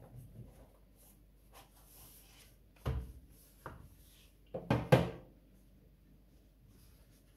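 Cardboard knife box being opened and handled: lids lifted off and parts set down, giving a few sharp knocks and scrapes, the loudest cluster about five seconds in.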